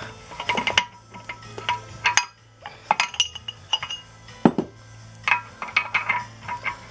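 Metal clinking and knocking as the parts of a car's inner CV joint (tripod joint) are handled and fitted. There is a scatter of sharp clinks with short ringing, coming in several clusters.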